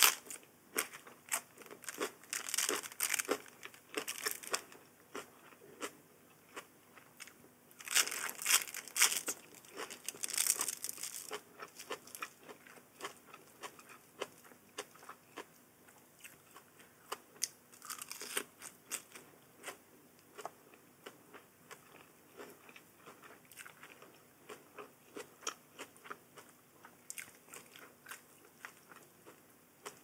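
A person chewing and crunching crisp food, bite after bite, with louder runs of crunching about 2 to 4 seconds, 8 to 11 seconds and 18 seconds in.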